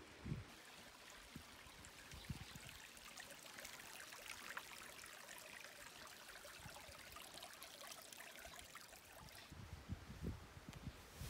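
Faint trickling of a shallow stream running over rocks, a soft steady splashing hiss. A few low bumps come near the end.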